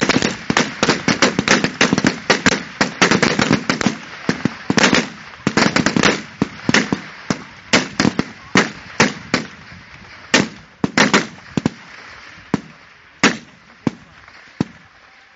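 Many rifles firing along a firing line, shots overlapping several a second at first, then thinning to single scattered shots that stop near the end.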